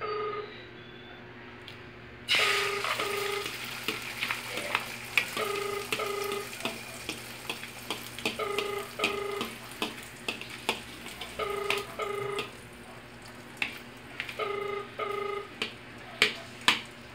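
Beaten egg hitting hot oil in a frying pan: a sizzle starts suddenly about two seconds in and keeps going, with light taps and scrapes of a fork against the bowl. A short electronic double beep repeats about every three seconds.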